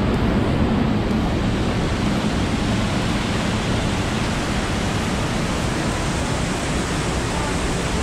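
Waterfall rushing: a loud, steady, even wash of water noise.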